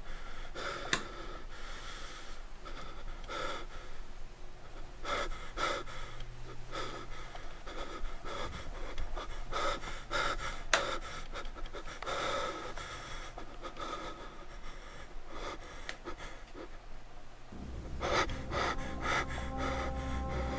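A person breathing heavily close to the microphone while walking, with scattered knocks and handling clicks. Near the end a steady low hum comes in.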